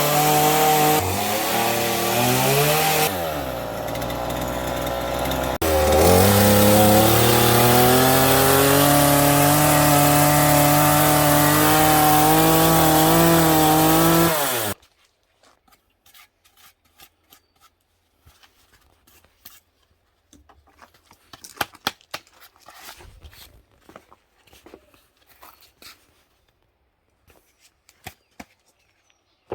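Chainsaw engine running and cutting wood; its pitch drops about three seconds in, climbs back, then holds steady before cutting off about halfway through. Faint scattered knocks and taps follow.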